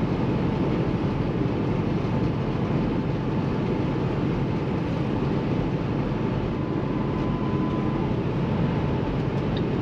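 Inside the cab of a 2016 Kenworth T680 semi truck with a Paccar MX13 diesel, cruising at highway speed: a steady low drone of engine and road noise, with a faint steady whine.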